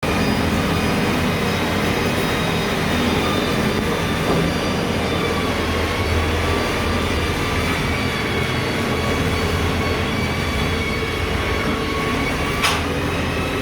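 Machinery running steadily: a low rumble with a faint steady whine over it, and one sharp click about a second before the end.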